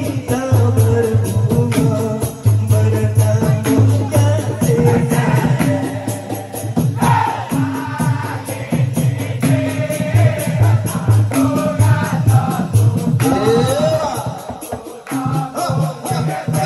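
Traditional ensemble performing live: voices sing and chant together in chorus over a laced barrel drum and a hanging gong, with a steady pulse of shaken percussion and a low hum that comes and goes in repeated blocks.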